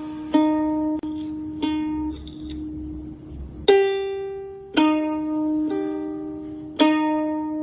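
Background music: a slow tune of single plucked notes, each starting sharply and left to ring out.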